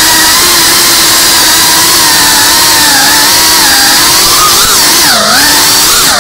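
5-inch FPV racing drone's brushless motors and propellers whining, the pitch wavering with throttle. Near the end the whine drops sharply and climbs back twice.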